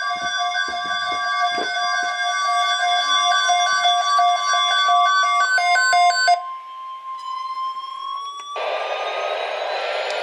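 NOAA Weather Radio alert: a steady alarm tone near 1 kHz layered with pulsing beeps, all cutting off about six seconds in. A single tone then rises slowly in pitch, with a hiss joining it about two seconds later.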